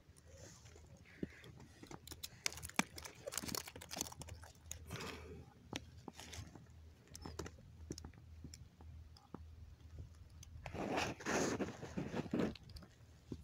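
Irregular clicks, scrapes and rustles of close handling as steel pliers grip and work a fishing hook out of a small fish's mouth, busiest early on and again near the end.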